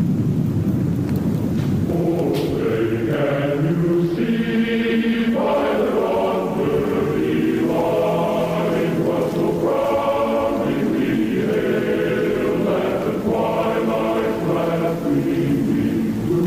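Low rumbling noise, then from about two seconds in a choir singing long held notes in slowly changing chords.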